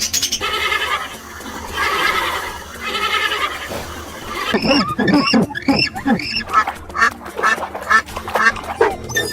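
Ducks quacking: three drawn-out calls, then a fast run of short falling quacks, about two a second, to the end.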